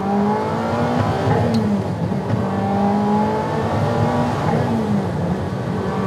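Twin-turbocharged Ferrari 348 Challenge V8 accelerating hard, heard from inside the cabin. The engine pitch climbs, drops with an upshift about two seconds in and again about four and a half seconds in, then climbs again.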